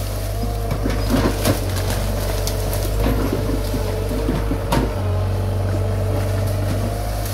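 Komatsu PC75 mini excavator's diesel engine running steadily under load, a low hum with a wavering whine over it. Branches crack and snap sharply a few times as the machine pushes through brush.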